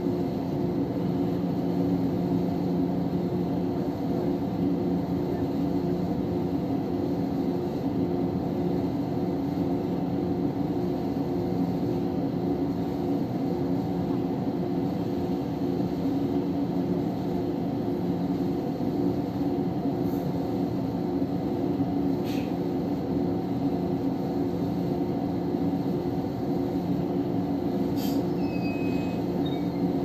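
Steady hum of an electric train standing at a platform, heard from inside the driver's cab, with several held low tones and a couple of faint clicks near the end.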